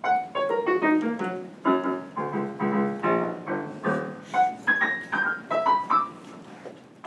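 Piano played by hand: a quick falling run of single notes, then a series of struck chords, then a short line of higher single notes that dies away near the end.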